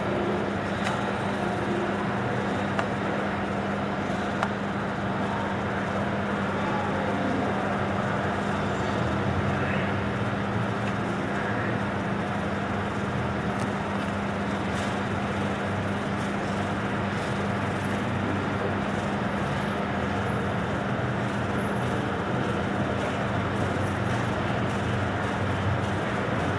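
Steady din of diesel buses idling and moving through a covered bus interchange, over a constant low hum.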